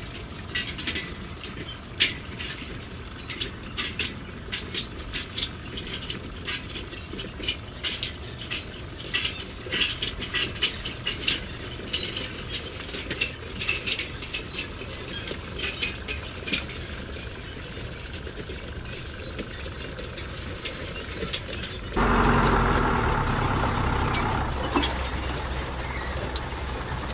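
Huina remote-control toy excavator running, its electric motors and gears whirring under a rapid, irregular clatter of clicks from the tracks and gearing as it moves. About 22 seconds in the sound turns louder and steadier.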